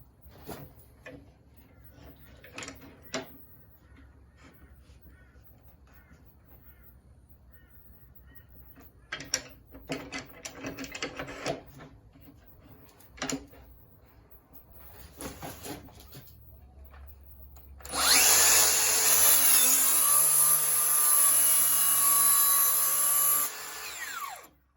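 Makita 40-volt cordless track saw starting suddenly about three-quarters of the way in and running for about five seconds with a steady high whine as it plunges into the workpiece, then winding down. Before it, scattered clicks and knocks of the saw and track being handled.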